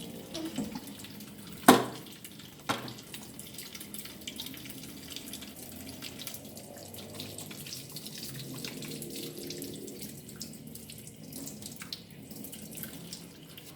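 Tap running into a sink while hands are washed under it. A sharp knock sounds about two seconds in, the loudest moment, and a softer one follows a second later.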